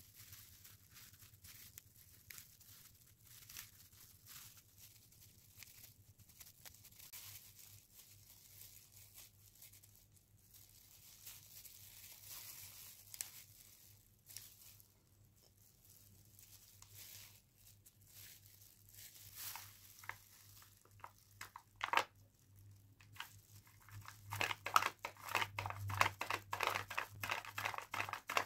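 Thin disposable plastic gloves crinkling and crackling against origami paper as it is folded and creased, in light, irregular rustles. Near the end the crackling becomes louder and denser as the folded paper ball is pressed.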